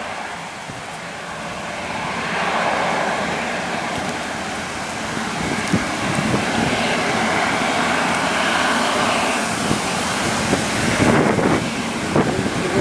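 Gusty wind buffeting the microphone and stirring the roadside trees, with a distant heavy truck faintly heard approaching near the end.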